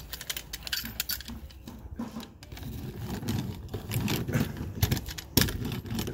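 Hand laminating roller being rolled over wood paneling to press it onto contact cement, clicking and rattling irregularly over a low rolling rumble, with a few sharper knocks near the end.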